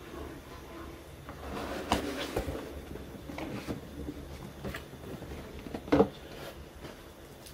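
Cardboard box being handled and opened: rustling and scraping with several light knocks, the loudest knock about six seconds in.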